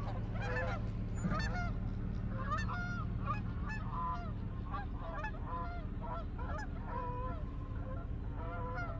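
A flock of geese honking, many short calls overlapping and repeating, over a steady low hum.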